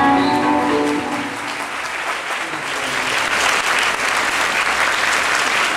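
The dance music ends about a second in, and a large audience breaks into applause, the clapping building up and carrying on steadily.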